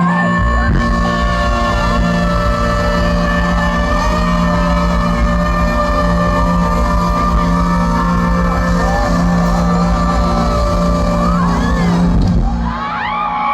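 Live band playing an instrumental passage through a concert sound system: sustained keyboard chords over a heavy, steady bass. Near the end the bass drops out and voices rise in.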